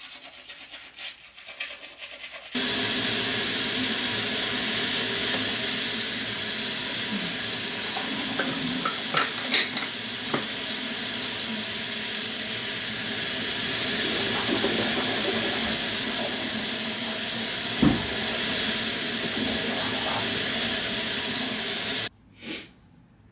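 Bathroom sink tap running steadily, turned on about two and a half seconds in and shut off abruptly near the end. A few small knocks sound under the water, one louder thump among them.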